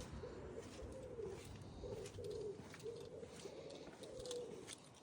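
A pigeon cooing faintly, a steady run of short, low coos repeated again and again.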